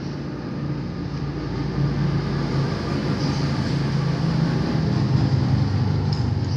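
A vehicle engine's low rumble, growing steadily louder and easing slightly near the end, as of a vehicle passing by.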